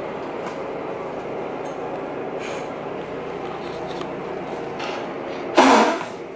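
Steady, even rumble of water churning in a bathtub heaped with bubble-bath foam, with a short, loud outburst near the end.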